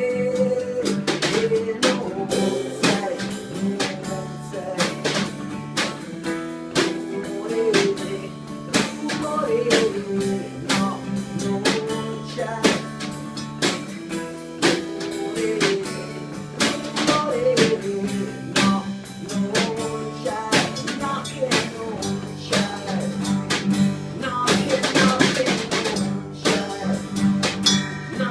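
A song played by a band, mostly instrumental here: guitar over a steady drum-kit beat with rimshots, and a melody line moving over sustained chords.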